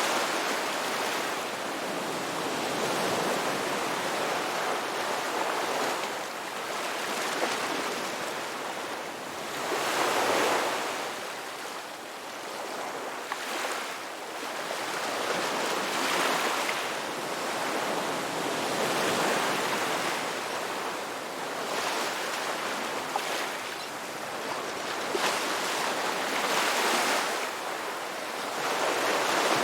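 Ocean waves breaking and washing on a shore, the surf swelling and ebbing in slow surges every few seconds.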